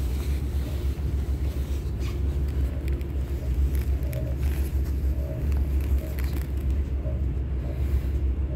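Steady low rumble of an ES2G (Siemens Desiro RUS "Lastochka") electric multiple unit running along the line, heard on board.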